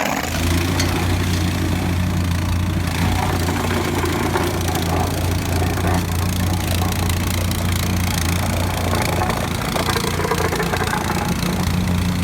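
A machine's motor starts just after the beginning and runs steadily with a low, even hum.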